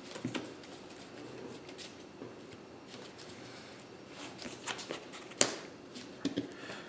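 Playing cards being handled and slid across a cloth playmat: soft rustling and light clicks, with one sharper click about five and a half seconds in.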